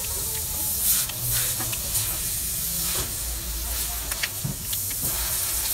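Hands scrubbing a grease-coated wheel-hub part over a pan of solvent: wet rubbing and scrubbing with many short scuffs, over a steady low hum.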